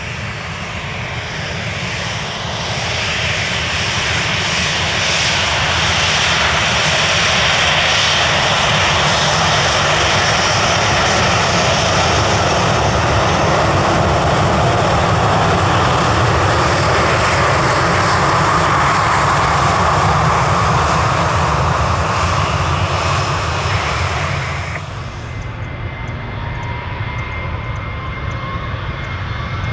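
Jet airliner engines running loud as the aircraft passes, building over the first few seconds and holding steady. The noise drops away sharply near the end, leaving a fainter rising whine.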